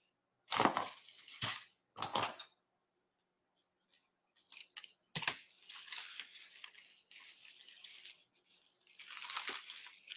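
Thin black plastic garbage bag pulled apart by hand, the cut strips tearing loose where they are still joined: three short rips in the first couple of seconds, a pause, then crinkling and rustling of the plastic through the rest.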